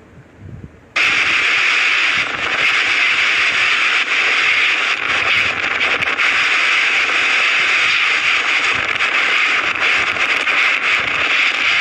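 Cyclone wind and driving rain: a loud, steady rushing hiss that starts suddenly about a second in.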